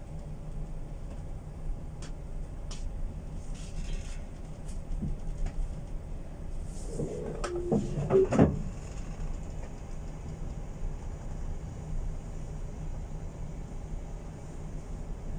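Steady low hum of a tanker's machinery, with a few scattered clicks and, about halfway through, a brief cluster of knocks and rattles that is the loudest sound.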